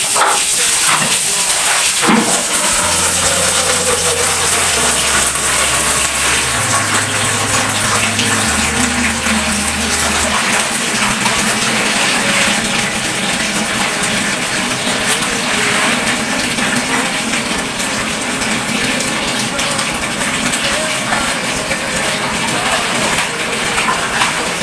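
Water running steadily from a tap into a plastic bucket, with sloshing and splashing as clothes are rinsed and wrung out by hand in a basin.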